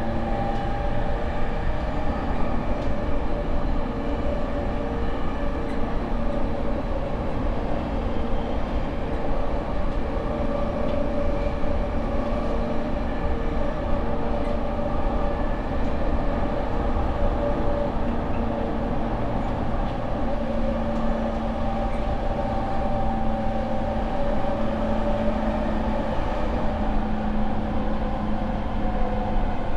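JR East E231 series 800-subseries motor car with its unrenewed Mitsubishi IGBT inverter, running at speed, heard from inside the car: steady motor and inverter tones held at nearly constant pitch over the low rumble of wheels on rail.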